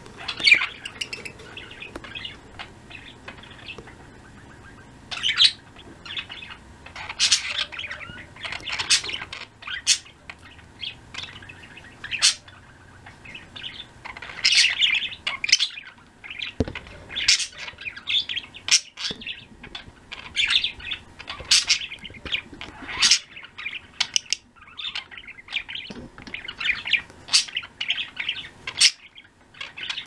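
Pet budgerigars chirping and trilling in quick, irregular high-pitched bursts, several birds calling over one another.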